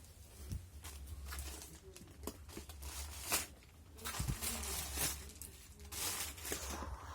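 Plastic packaging rustling and crinkling in irregular bursts as a parcel is handled and opened, with a few sharp clicks.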